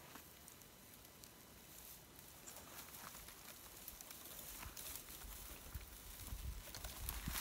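Quiet trail ambience with faint scattered clicks and rustles, then low thuds that build from about five seconds in.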